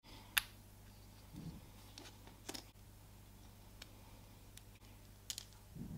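Faint clicks and taps from gloved fingers handling a gold-plated watch case as its white plastic crystal ring is eased out: several small clicks, three of them sharper, and a couple of soft thuds, over a steady low hum.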